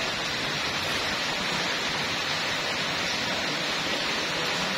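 A steady, even background hiss with no distinct events.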